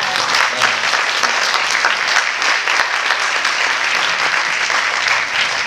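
Audience applauding: many people clapping at once, a dense, steady patter of hand claps that holds at an even level.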